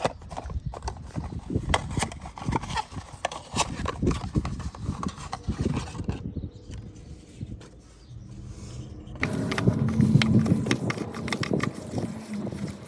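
Hands fitting a new oil filler cap on the engine: a run of irregular clicks and knocks of plastic and metal parts being handled, a quieter pause, then a louder low rumble with a few more clicks for the last few seconds.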